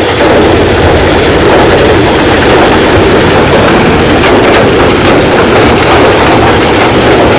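Rock crushing machine running under load, a loud steady rumble with the clatter of stone being broken.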